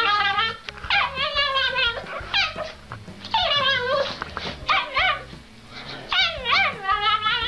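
Small dog making a run of drawn-out whining, yowling calls, each under a second, most sliding down in pitch and then holding, with a few quick rising-and-falling ones near the end.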